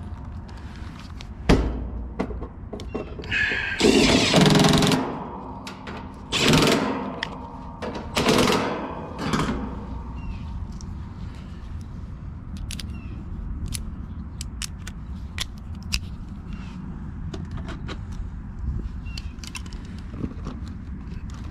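Cordless Milwaukee impact driver running in four short bursts, driving the sheet-metal screws back into the condenser's access panel. After that come light clicks and clinks of hand tools being handled and put away in a tool bag.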